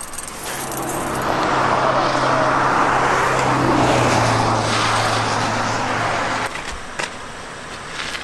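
A vehicle passing on the road: a steady engine hum and tyre noise that build up, peak in the middle and then cut off suddenly. A few light metallic clinks follow near the end.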